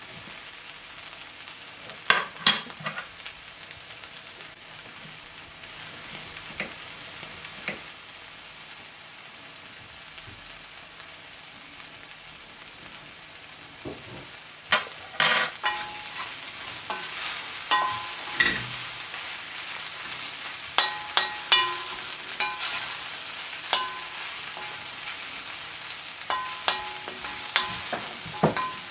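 Sliced mushrooms frying in oil in an enamelled pot with a faint steady sizzle, while a wooden spoon stirs them, scraping and knocking against the pot. The knocks are few at first and become frequent in the second half.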